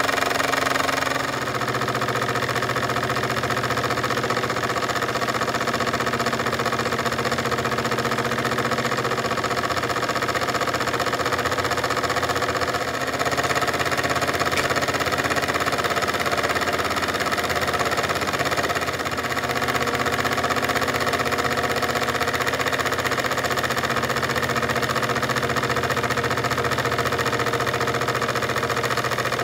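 Jensen 25G model steam engine running steadily at speed: a fast, even mechanical clatter with a steady hum underneath.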